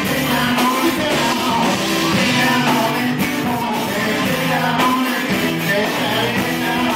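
Live rock band playing a cover song at full volume: a man singing lead over electric guitar, bass guitar and a drum kit.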